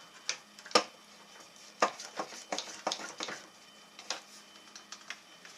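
Knocks and clatters of wooden benchwork parts and tools being handled and moved: a string of short sharp knocks, the loudest just under a second in and another just under two seconds in.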